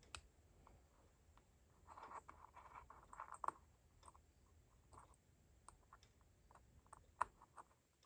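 Faint scattered clicks and a brief scraping of small parts being handled as the center block of a TopB mechanical fidget is changed, with one sharper click about seven seconds in.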